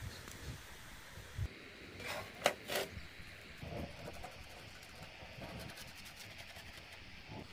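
Faint handling sounds: three light knocks about two to three seconds in, then soft scratching as a pen traces around a cardboard template on a PVC sheet.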